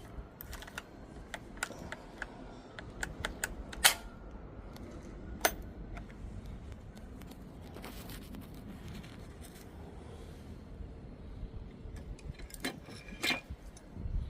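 Small metal lock parts and keys clicking and clinking as they are handled and fitted by hand. Scattered sharp clicks, the loudest about four seconds in and another a second and a half later, then a short run of clicks near the end.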